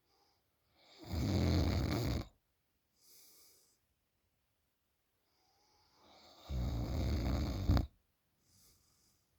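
A sleeping woman snoring loudly: two long snores about five and a half seconds apart, each followed by a much softer breath.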